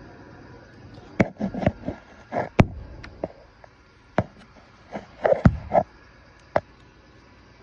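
Handling noise from a phone being fitted into a plastic tripod phone mount: about half a dozen sharp clicks and knocks, spaced irregularly, with short rubbing and scraping against the phone's own microphone.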